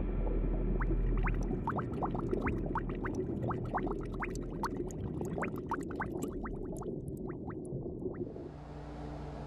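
Underwater bubbling: a rapid scatter of short rising chirps, several a second, over a low steady rumble, in the manner of herring releasing gas bubbles to keep in touch with the school. Near the end it gives way to a steady hum.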